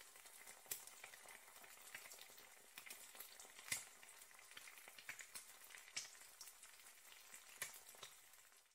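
Faint sizzling and crackling of food frying in hot oil, with many sharp pops scattered through it.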